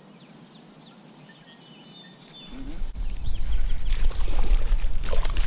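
Faint bird chirps over quiet outdoor air, then from about halfway a loud low rumble of wind buffeting the microphone.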